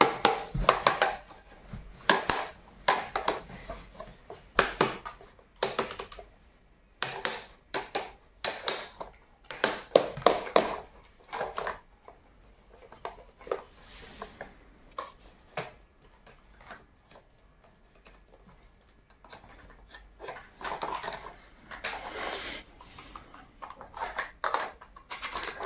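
Hard plastic clicking, knocking and rattling from a plastic toy pickup truck being handled and worked on with plastic toy tools. Irregular clusters of clicks, with a quieter stretch past the middle.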